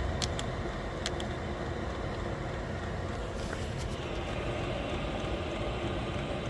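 8kW diesel air heater running with a steady low roar from its burner and fan. A few sharp clicks come in the first second or so.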